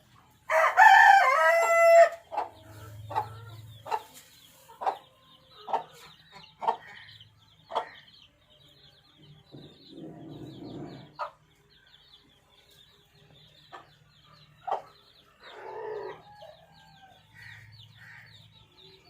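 A rooster crows once, loud, just after the start, followed by a series of short clucks, about one a second at first and then sparser. A faint rapid high chirping runs underneath.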